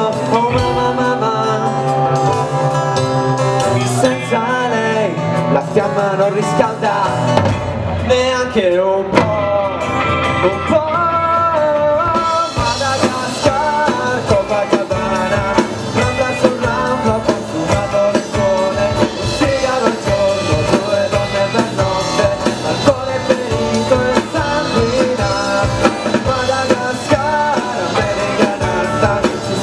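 A live rock band playing on a stage: electric guitars, bass guitar and drum kit through a PA, the sound growing fuller and brighter about twelve seconds in.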